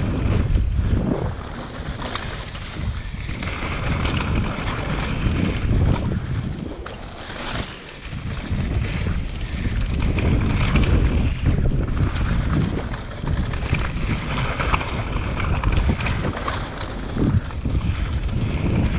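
Wind rushing over a GoPro's microphone on a downhill mountain bike, with tyre noise and short knocks and rattles from the bike over rough trail; the rush eases briefly a little past the middle.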